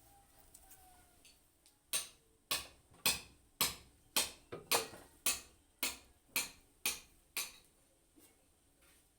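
A run of about twelve sharp hammer blows, evenly spaced at roughly two a second, starting about two seconds in and stopping after about five and a half seconds. These are separate strikes, not the continuous rapid hammering of a running rotary hammer.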